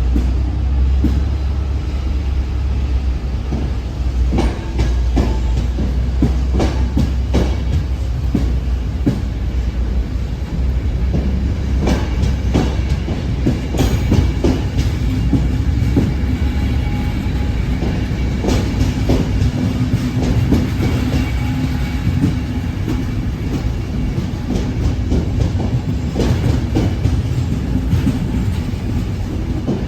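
Railway coaches rolling slowly over rail joints and points, wheels clacking and knocking irregularly, over the low rumble of the pushing diesel locomotive, which fades about halfway through.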